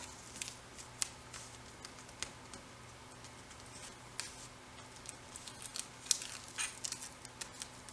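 Scattered light ticks and crinkles of the backing being peeled off strips of tape on paper, over a faint steady hum.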